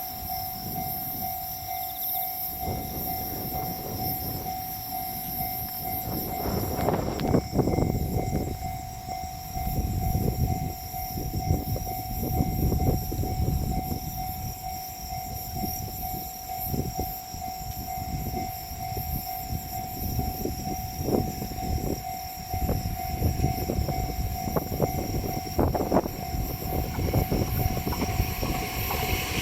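Japanese level-crossing warning bell ringing steadily while a JR 209 series 2100 electric commuter train passes, its wheels rumbling along the track with occasional sharp clacks over the rail joints.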